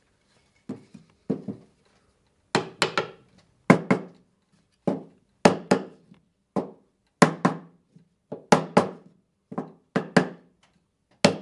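Freshly glued wooden picture frame knocked against a wooden workbench in an uneven run of sharp knocks, one or two a second and often in close pairs. The frame is being tested to show that its glued joints hold and no longer move.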